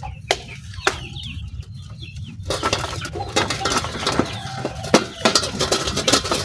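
Chickens chirping, with scattered clicks; from about two and a half seconds in, dense rustling and clattering handling noise takes over.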